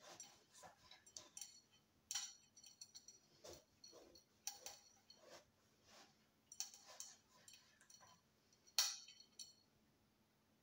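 Faint, irregular light clicks and clinks of kitchen utensils and dishes being handled during food preparation, over a low steady hum.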